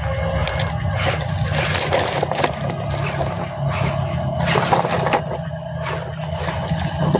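Radio-controlled toy trucks driving over gravelly dirt: a steady low motor drone with scraping and crunching from the wheels on grit.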